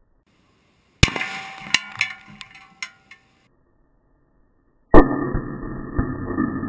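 Two .308 Winchester rifle shots. The first, about a second in, is followed by a scatter of sharp metallic clinks and clatter for about two seconds; the second, about five seconds in, is the loudest, and steady background music comes in with it.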